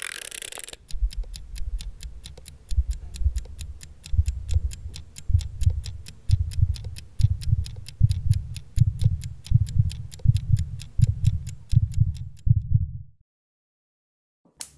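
A mechanical appliance timer dial is wound with a brief scraping turn, then ticks quickly and evenly, about five ticks a second. Under the ticking, low thumps about two a second build in loudness, and both stop suddenly about 13 seconds in.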